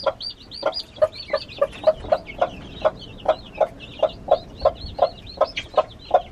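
Mother hen clucking steadily, about three low clucks a second, over the constant high peeping of her young chicks gathered around her.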